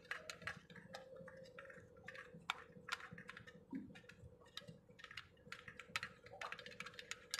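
Irregular light metallic clicks and taps of a hand tool working on a Bosch-type inline diesel injection pump, over a faint steady hum.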